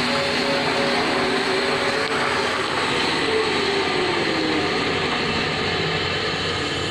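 ACS 380 V band saw machine running with a steady mechanical noise. One tone in it falls in pitch around the middle.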